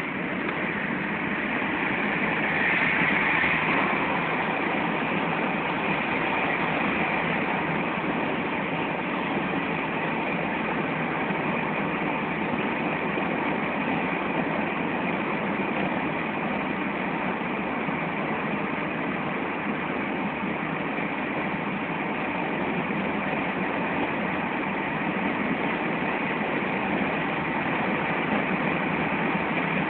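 Steady road and engine noise of a moving taxi, heard from inside the cabin, slightly louder for a moment about two to four seconds in.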